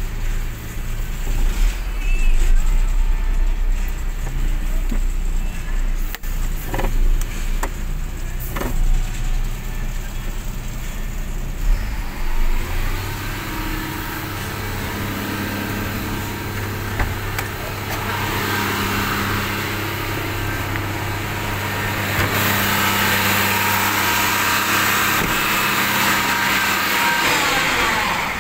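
UD Croner garbage truck's diesel engine: a low uneven rumble at first, then from about halfway a steady hum with a growing hiss, which winds down with a falling pitch near the end.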